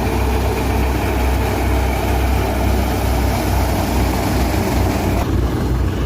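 Heavy farm machinery engine running steadily with a deep low throb and machine noise; the higher hiss drops away about five seconds in.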